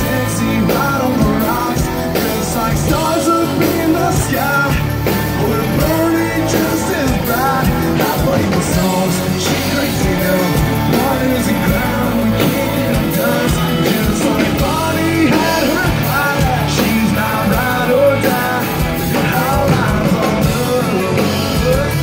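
Live band music with a male singer on microphone, loud, as heard from within the crowd.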